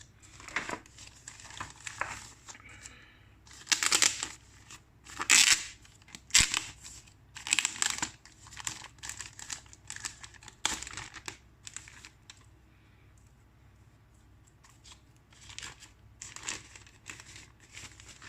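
Plastic packaging being crinkled and torn open by hand in irregular rustling bursts, with a quieter pause in the middle before more rustling.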